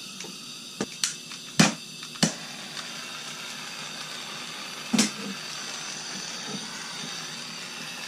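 Handheld jeweler's gas torch being lit: gas hisses from the tip, four sharp clicks come in the first couple of seconds, then the flame burns with a steady hiss. One more click comes about five seconds in.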